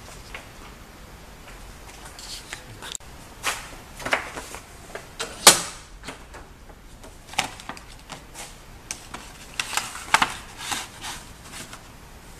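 Irregular clicks, knocks and paper rustling from handling a cover sheet at a manual glue binding machine. The sharpest knock comes about five and a half seconds in, and a quick run of clicks about ten seconds in.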